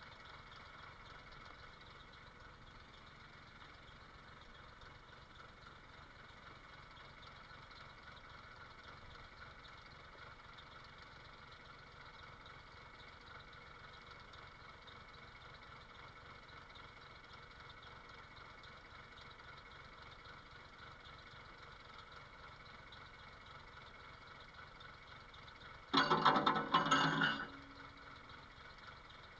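An engine idling steadily in the background. Near the end comes a short loud burst of about a second and a half, consistent with a jackhammer briefly hammering.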